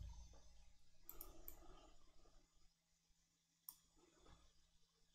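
Near silence with a few faint computer mouse clicks, the sharpest about three quarters of the way through.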